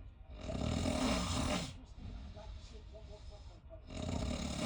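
A person snoring: two long snores, one starting about half a second in and another near the end, with quieter breaths between.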